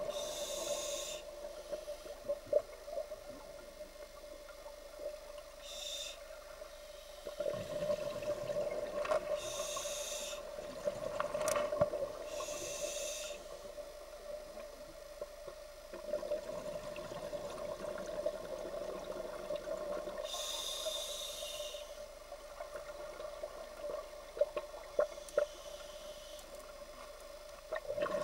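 A scuba diver breathing through a regulator underwater: short hissing inhalations every few seconds and bubbling exhalations, over a steady hum.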